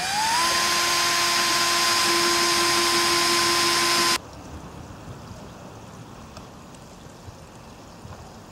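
A small electric power tool running: its motor whine rises as it spins up, holds steady for about four seconds, then cuts off suddenly.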